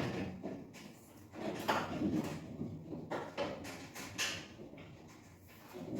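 Irregular knocks and scraping from renovation work, several separate bumps and drags a second or so apart.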